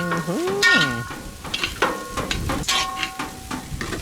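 Food sizzling in a pot over a fire while it is stirred, with repeated short scraping strokes. A drawn-out vocal call rises and falls about half a second in.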